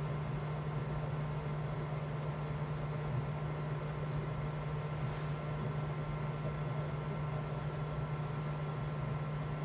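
Tesla Model 3's electric AC compressor (heat pump) running with a steady low hum, no grinding yet. A brief hiss about five seconds in.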